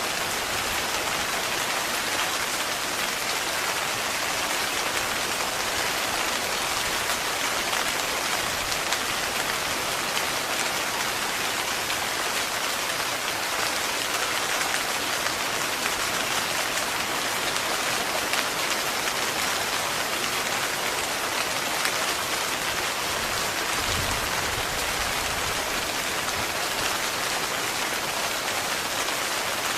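Heavy rain falling steadily on a tent, a dense even patter of drops. About three-quarters of the way through there is a brief low rumble.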